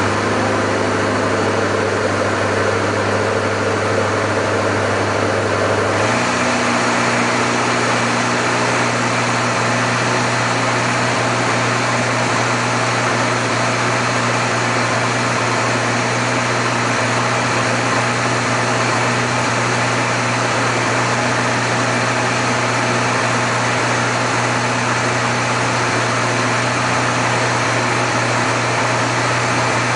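Boat engine running steadily under a constant rush of noise, its pitch stepping up slightly about six seconds in as the throttle opens a little, then holding steady.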